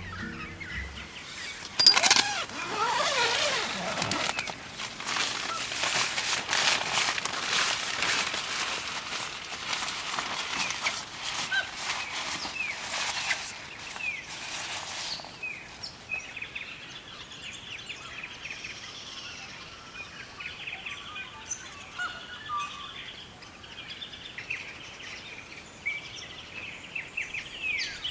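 Laughing kookaburras calling in a loud, raucous chorus of rapid repeated notes, which breaks off abruptly about halfway through. Smaller birds then chirp sparsely.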